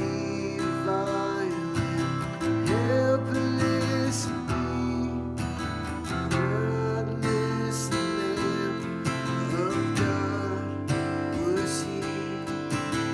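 Instrumental music with acoustic guitar, a sustained melody line sliding between notes above it.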